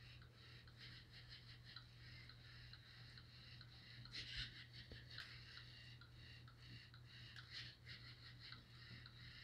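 Faint, steady high whirring of a LEGO Mindstorms robot's small electric gear motors as it drives on its tracks, with a few slightly louder moments about four seconds in.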